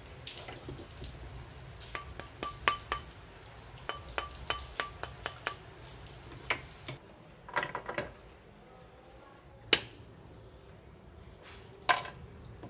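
Light metal clinks and taps with a short ring: a silver strip knocking against a steel ring mandrel as it is bent around it, and hand tools being picked up on the workbench. A quick run of about a dozen clinks comes in the first half, then a few single, sharper knocks.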